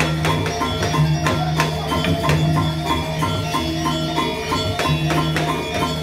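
Balinese gamelan playing dance music: bronze metallophones struck in quick, even repeated notes over sustained low tones, with frequent cymbal clashes.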